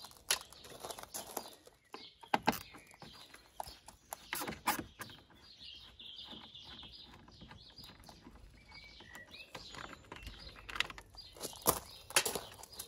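Scattered clicks and knocks of hands handling the plastic grille surround and trim clips behind a car's front grille, with faint bird chirps behind.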